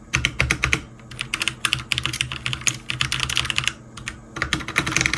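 Typing on a Magegee 60% mechanical keyboard: quick runs of clacking keystrokes, with short pauses about a second in and again near four seconds.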